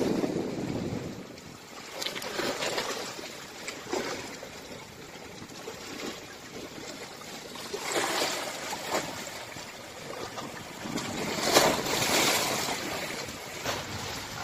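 Small sea waves breaking and washing up onto a sandy beach, swelling and fading several times with the loudest surge near the end. Some wind rumbles on the microphone at the start.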